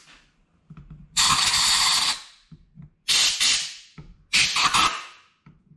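Compressed-air blow gun blasting through the fuel and air passages of a Mikuni BS38 carburettor body to clear them out: three loud hissing blasts, the first about a second long starting about a second in, then two shorter ones.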